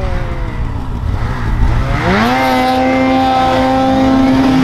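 Turbocharged two-stroke mountain snowmobile engine in deep powder. It eases off, then revs up about two seconds in and holds at high revs as the sled climbs and stands nearly upright, with a steady low rumble underneath.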